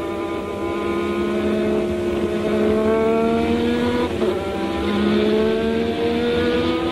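Renault EF1 1.5-litre turbocharged V6 of a 1983 Renault RE40 Formula 1 car pulling hard, heard onboard, its pitch climbing steadily. About four seconds in it drops sharply with an upshift, then climbs again.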